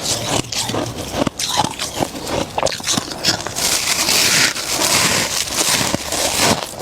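Close-up crunching and chewing of soft, crunchy freezer frost: a dense run of crackling crunches, thickest around the middle.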